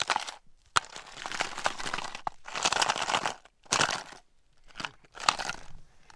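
Crunching and crinkling handling noises in irregular bursts, with a few sharp clicks, as camping stove gear is unpacked and handled in the snow.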